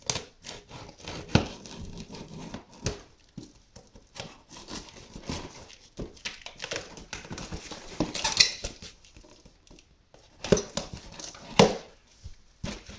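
A cardboard shipping box being cut open with a pocket knife: irregular scraping and slicing through the tape, with rustling and a few sharper knocks as the cardboard is handled.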